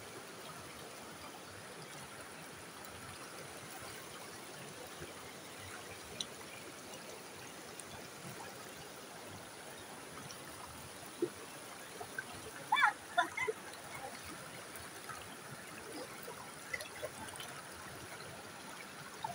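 Shallow rocky creek trickling steadily over stones, with a few brief faint sounds about two-thirds of the way through.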